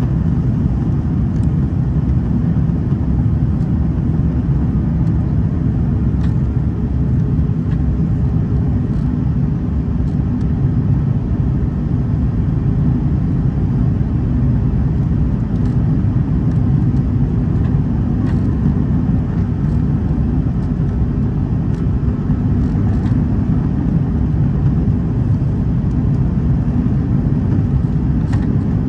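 Cabin noise inside an Airbus A330 climbing out: a steady, loud low rumble from its Rolls-Royce Trent 700 engines and air rushing past the fuselage, with a few faint ticks scattered through it.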